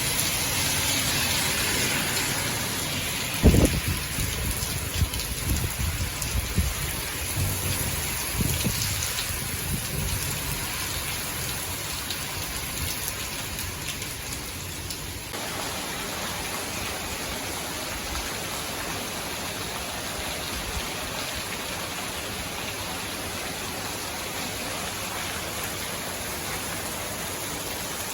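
Heavy typhoon rain falling and hitting surfaces as a steady hiss. A low thump comes about three seconds in, followed by several seconds of irregular low rumbling.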